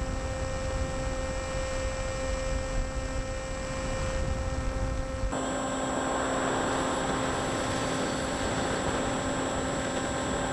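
Electric RC airplane's brushless motor and propeller giving a steady whine, with wind rushing over the onboard camera's microphone. About five seconds in the sound changes abruptly to a brighter hiss with the whine a little shifted in pitch.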